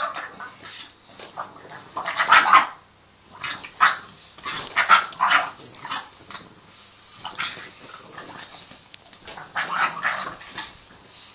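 French bulldog puppy giving short play barks and growls in several bouts while play-fighting, the loudest about two seconds in.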